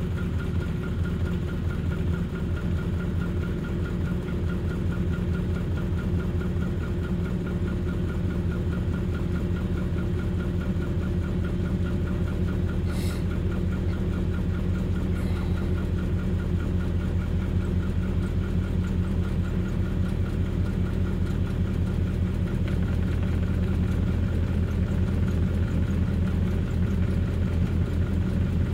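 Datsun/Nissan 720 pickup's carbureted 2.4-litre Z24 four-cylinder engine idling steadily, warming up after a cold start, heard from inside the cab. A single brief click sounds about halfway through.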